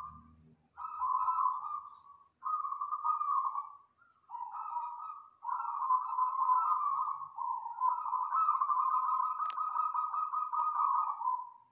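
Zebra dove cooing in repeated phrases at a steady pitch, with short breaks between them; the last phrase runs on for about four seconds.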